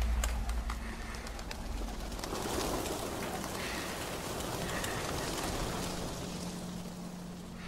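A flock of pigeons taking off and flying, a fluttering rush of many wingbeats that swells a couple of seconds in and then eases.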